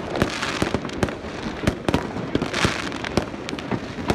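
Fireworks going off all around: an irregular run of sharp bangs, about two a second, with several swells of crackling hiss from bursting shells.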